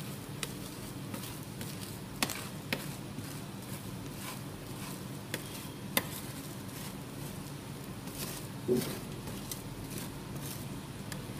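Metal spatula scraping and tapping on the frosted steel cold plate of a rolled-ice-cream stall: a few sharp clicks over a steady low hum, with a duller knock about three-quarters of the way through.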